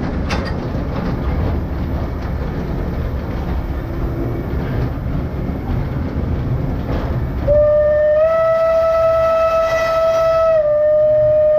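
Train running along the track with a steady rumble of wheels on rail. Near the end its whistle sounds one long, steady note that steps up slightly in pitch and back down, a warning for a level crossing ahead.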